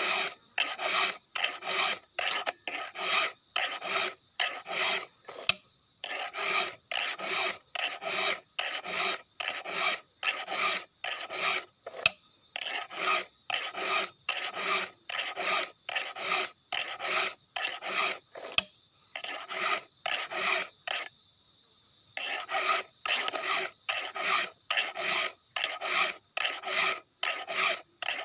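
A hand file rasping across the cutters of a chainsaw chain, sharpening them for ripping, in steady back-and-forth strokes about two a second. There is a short pause about three-quarters of the way through.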